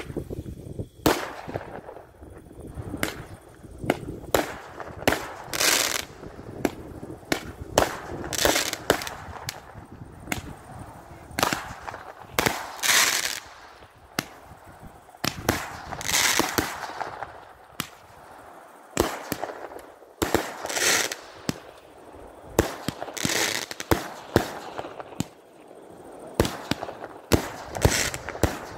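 Roman candles firing shot after shot: a string of sharp pops, irregularly spaced, with a brighter hiss every few seconds.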